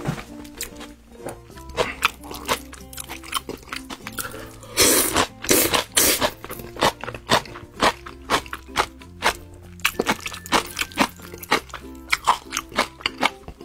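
Close-up eating sounds of spicy instant noodles with grilled eel: wet chewing and lip-smacking clicks throughout, and a long, loud noodle slurp about five seconds in, over background music.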